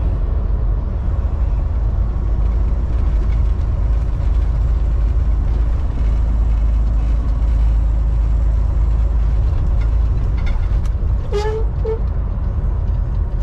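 Steady low rumble of a semi-truck's engine and tyres, heard from inside the cab while cruising at highway speed.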